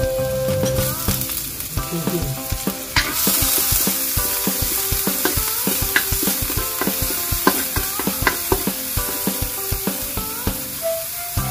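Minced garlic, ginger and green onion sizzling in hot oil in a metal wok, with a wooden spatula scraping and tapping against the wok as it stirs. The sizzle grows louder about three seconds in.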